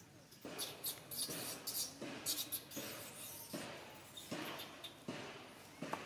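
Irregular short rustles and scrapes in dry leaf litter, a few each second, like monkeys shifting about on the forest floor.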